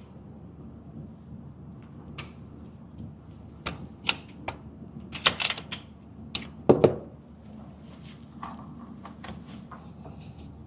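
Sharp metallic clicks and clacks of a gun being handled and loaded, coming irregularly and bunched in the middle, with one heavier clack about two-thirds of the way through and fainter clicks after it.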